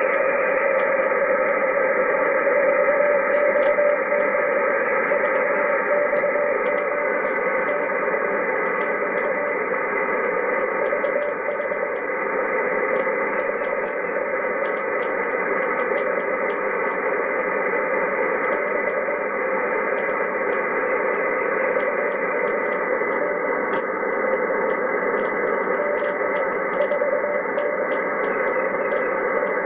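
Shortwave receiver tuned to the HF band, giving steady static with several faint steady tones of weak, distant signals buried in the noise. A quick burst of four high beeps repeats about every eight seconds.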